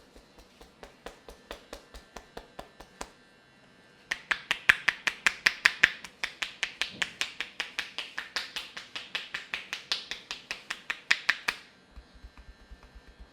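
A rapid, even series of sharp clicks or taps, at about four or five a second. They start soft, turn much louder and faster about four seconds in, and drop back to faint near the end.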